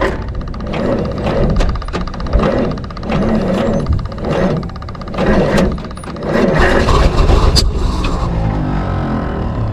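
The 779-cubic-inch Waukesha straight-six of a 1952 Oren fire truck turning over and running unevenly in surges, then running more steadily near the end. It is being started after about 25 years parked, on a makeshift gas-can fuel supply with jumper-wired ignition.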